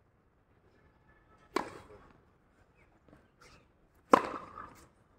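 Tennis racket striking the ball on a serve: a sharp pop about four seconds in, the loudest sound. A similar but weaker sharp hit comes about a second and a half in.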